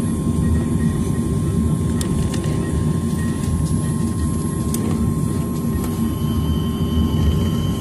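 Steady low rumble inside the passenger cabin of a Boeing 737-900ER with its CFM56-7B turbofan engines running, a thin steady tone over it and a few faint clicks.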